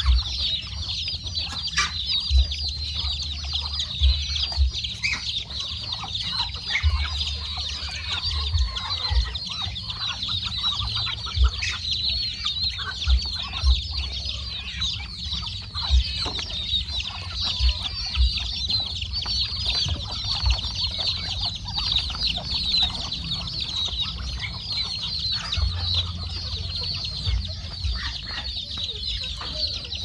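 A mixed farmyard flock of chickens, chicks and Muscovy ducklings calling: a dense, unbroken chorus of high peeping with hens clucking among it. Scattered low thumps come through now and then.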